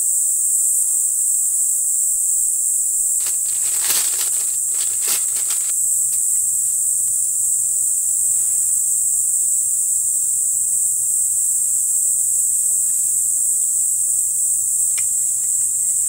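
Steady high-pitched chorus of insects, with a few short rustling, handling noises about four to six seconds in.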